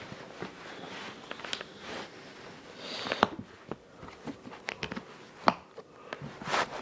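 Gear being handled: scattered light clicks and knocks with soft rustling, a sharper click about three seconds in and another about five and a half seconds in.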